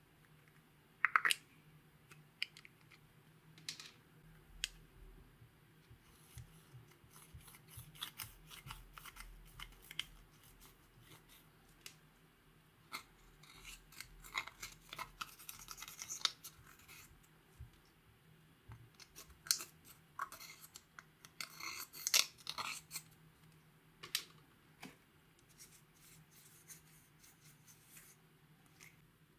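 A plastic spatula scraping and crumbling pressed powder eyeshadow out of its plastic compact: irregular bursts of dry, scratchy scraping broken by light clicks and taps.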